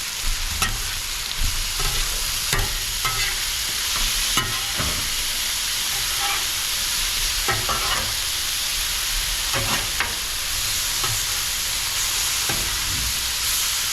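Chicken and shrimp sizzling on a Blackstone flat-top griddle, a steady frying hiss with irregular sharp clicks and scrapes from the food being worked on the hot steel.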